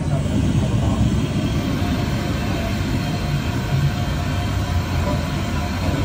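Steady low rumble of a tourist submarine's machinery, heard from inside the passenger cabin, with a faint even hum above it.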